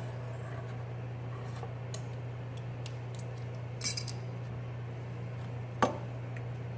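A diamond hone on a KME guided knife sharpener makes a few light metallic clicks and one ringing clink as single, pressureless passes are made along the knife's edge to weaken the burr. The loudest, sharpest click comes near the end, over a steady low hum.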